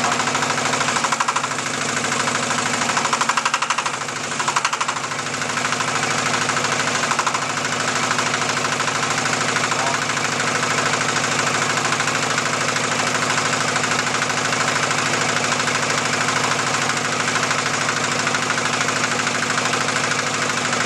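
Single-cylinder diesel engine powering a clay interlocking brick press, running steadily with a fast, even knock. The sound dips briefly a couple of times in the first five seconds.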